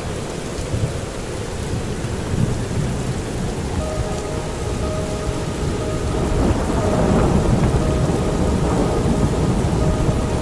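Steady rain falling, with a low thunder rumble that builds and grows louder about six seconds in.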